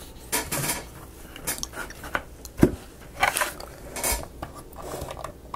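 Small miniature-model pieces being handled and fitted into the model: scattered clicks, taps and brief scrapes, with a sharper knock about two and a half seconds in and another about four seconds in.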